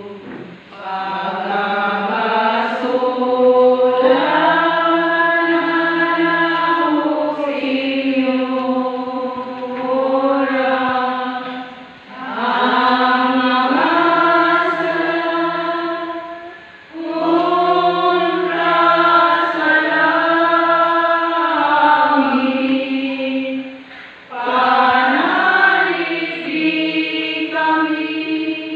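Congregation singing a slow hymn together: long, held sung phrases with brief pauses between them.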